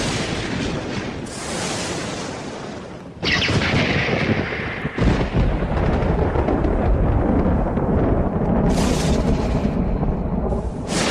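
Thunder: a rolling rumble fades, then a sharp crack about three seconds in breaks into a long deep rumble, with another heavy clap about five seconds in.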